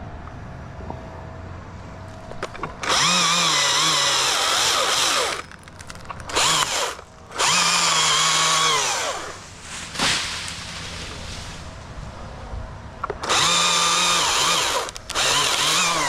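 Husqvarna chainsaw revved to full throttle in three long bursts and a few short blips, its high engine note dipping and recovering in pitch as it works through wood, dropping back to a low idle between cuts.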